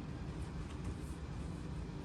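Steady low background hum and hiss: room tone, with no distinct clicks or knocks.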